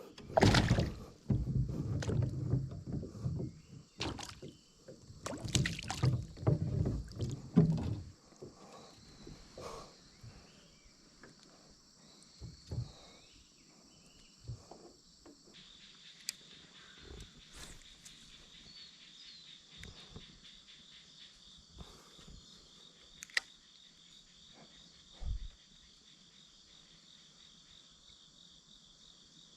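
Irregular water splashing and handling noise for about the first eight seconds. It then goes quiet, and about halfway through a steady high insect chirring sets in, like crickets, broken by a few faint clicks.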